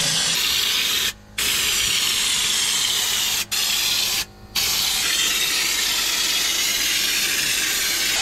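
Air-fed Raptor Liner spray gun at 45 PSI spraying bedliner: a loud, steady hiss of compressed air and atomised coating, broken off briefly three times.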